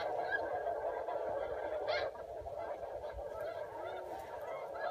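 A continuous din of many geese honking and cackling together, a little quieter after about two seconds.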